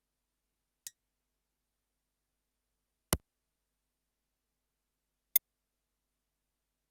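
Three short electronic percussion one-shots from a Teenage Engineering PO-32 Tonic drum synth, each followed by dead silence: a faint high click about a second in, a louder short hit around three seconds, and a sharp click near the end.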